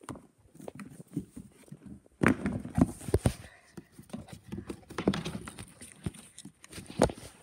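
Irregular knocks, thumps and rustling as a child climbs into a plastic ride-on toy car while the phone is handled close to the microphone. The heaviest knocks come about two to three seconds in, and again near the end.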